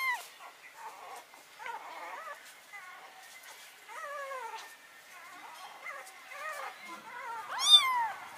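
Very young kitten mewing over and over, a string of high arched cries with the loudest near the end: a hungry kitten crying for milk.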